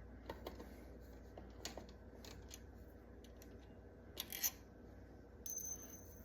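Faint scattered clicks and light taps from handling small objects, with a sharper double click about four seconds in and a brief hiss near the end.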